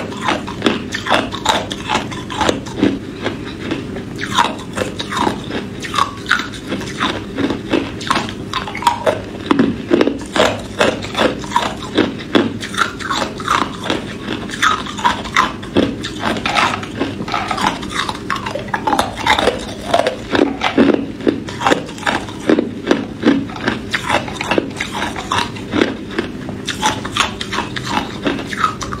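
Hard ice cubes being bitten and chewed, a steady run of sharp cracks and crunches, several a second.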